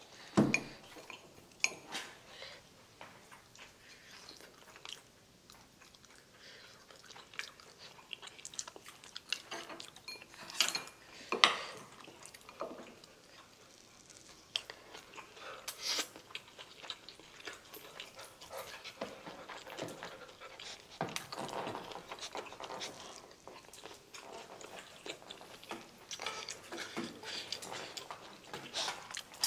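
Close-miked eating: chewing rice and grilled hairtail, broken by sharp clicks of wooden chopsticks and a spoon against a glass bowl and dishes. The loudest clicks come about half a second in and around eleven seconds.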